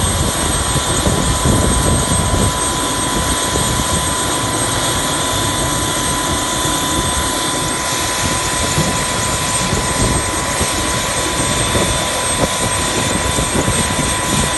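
Helicopter turbine engine running with a steady high whine over a continuous rushing noise, with an irregular low rumble throughout.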